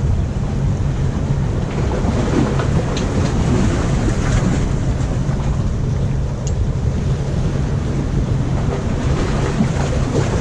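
Surf washing against the granite rocks of a jetty, a steady rush with a heavy low rumble.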